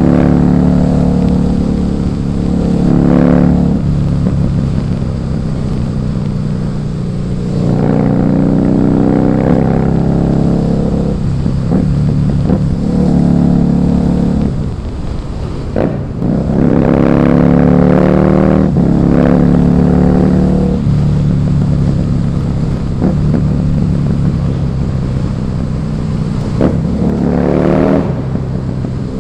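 Husqvarna Nuda 900R's parallel-twin engine on the move, revving up in several surges as the throttle opens, a few seconds in, about a third of the way through, past the middle and near the end. Between the surges the engine eases back to a lower, steadier note.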